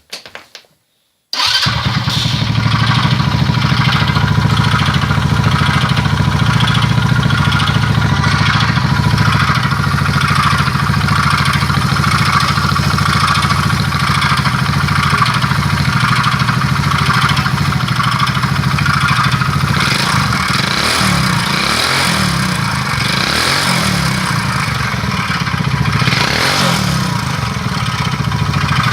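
An engine comes in abruptly about a second and a half in and runs steadily, with a few brief rises and falls in pitch near the end.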